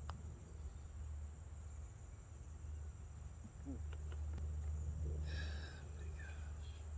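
Outdoor ambience dominated by a steady low wind rumble on the phone microphone, with a faint tap near the start and a short chirping call about five seconds in.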